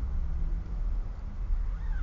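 Low, steady rumble of a moving car heard from inside the cabin. Near the end a short high cry rises and falls.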